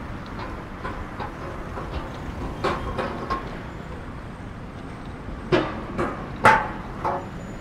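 City street ambience with a steady low traffic rumble. Several sharp, short loud sounds come in the second half.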